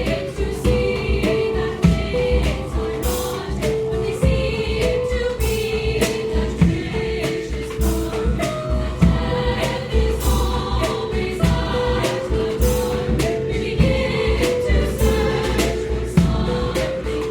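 Music: a girls' choir singing long held notes that step from pitch to pitch, over percussion with sharp strikes and deep drum hits.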